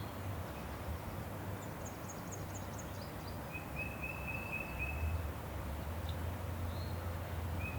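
Songbirds singing in the woods: a quick run of about six very high chirps, then a rapid row of short even notes, which comes again near the end, over a steady low rumble.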